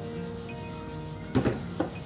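Background music, with three sharp knocks from about one and a half seconds in as the plastic washing-machine tub is tipped over and handled.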